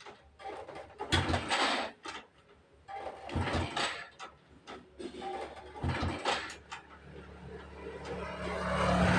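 Honda motorcycle being kick-started three times, each kick turning the engine over in a short clattering burst without it catching. Near the end a steady low drone builds up and becomes the loudest sound.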